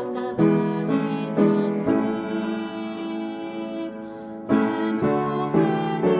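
Slow hymn music: chords and melody notes struck and left to ring, a few in quick succession, then a quieter held stretch, then more notes struck near the end.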